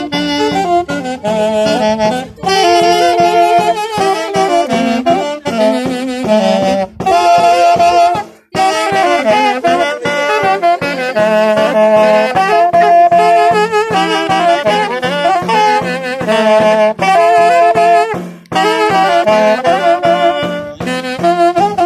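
Two saxophones playing an Andean herranza tune together in harmony, with a small hand drum beaten at a steady pulse underneath. The melody breaks off briefly twice between phrases.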